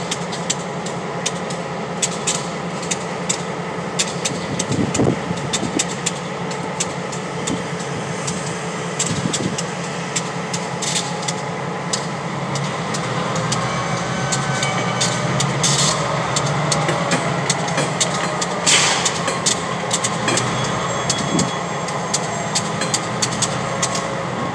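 Covered hopper cars rolling slowly past, with frequent clicks and clanks from the wheels and couplers. Under them runs the steady drone of a diesel locomotive engine.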